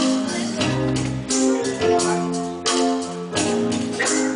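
Live band music: sustained chords that change every second or so, over percussion hits keeping a beat.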